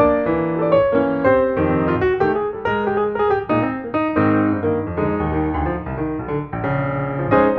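Background instrumental music, a piano playing a flowing run of notes and chords.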